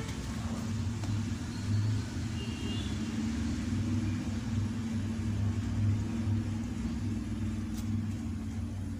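Steady low rumble with a hum running through it and no clear events, like background traffic or a running motor.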